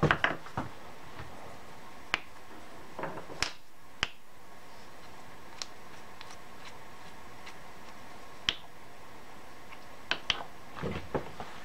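Scattered sharp metal clicks and light knocks, about ten in all, as hands handle small steel pieces around a bar clamped in a milling-machine vise. A steady faint shop hum runs underneath.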